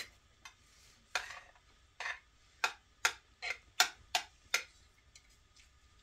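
Metal spoons clinking against plates, about ten irregular clinks that stop after about four and a half seconds.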